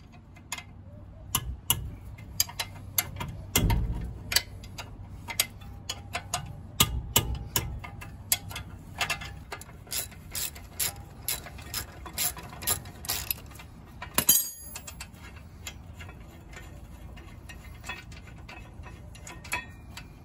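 Ratchet wrench with a 17 mm socket clicking in short runs as it undoes the front brake caliper bracket bolts. The clicking stops after a louder metallic knock about fourteen seconds in.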